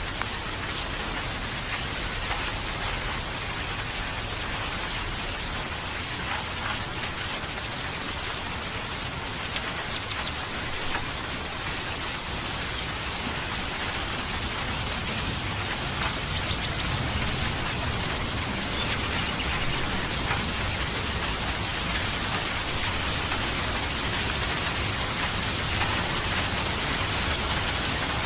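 Steady rain: a dense, even hiss with individual drops ticking through it, growing slightly louder in the second half.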